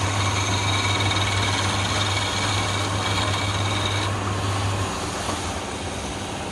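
Electric wood lathe motor running with a steady hum and a higher whine as it spins a wooden spindle; the whine stops about four seconds in and the hum about a second later as the lathe is switched off.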